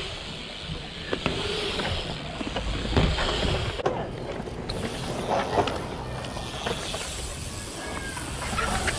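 BMX bikes riding a concrete bowl: tyres rolling on the concrete, with a rushing noise and a few sharp knocks, such as tyres or pegs hitting the lip or coping.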